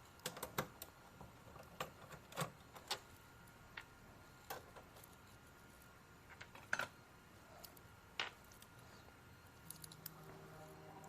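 Scattered light clicks and taps of small tools and parts being handled on a repair bench, irregular, about a dozen sharp ticks spread through the stretch.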